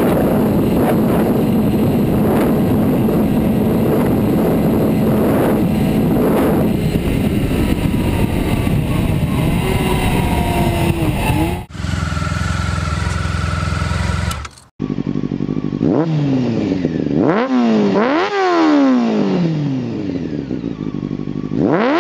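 Honda NR750's oval-piston V4 engine running steadily at high revs at high speed. About twelve seconds in it cuts to a lower, steadier motorcycle engine sound. From about fifteen seconds a motorcycle engine is revved up and down several times in quick rising and falling sweeps.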